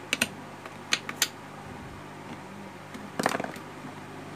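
A few sharp clicks in the first second, then a short clattering run of clicks about three seconds in, over a steady low electrical hum and hiss.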